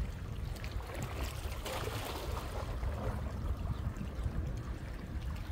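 Small waves lapping and splashing against shore rocks, with a louder splash about two seconds in, over a steady low rumble.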